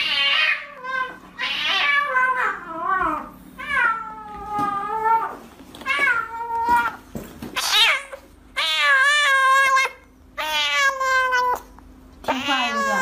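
A domestic cat meowing over and over in about nine long, drawn-out calls, several of them falling in pitch.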